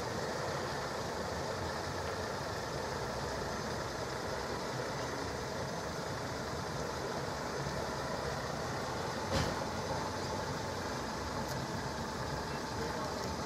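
Car engine idling steadily, with one short knock about nine seconds in.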